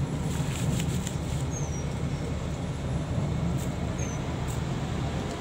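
Bus engine running, heard from inside the passenger cabin as a steady low rumble. A short, high, falling squeak sounds twice above it.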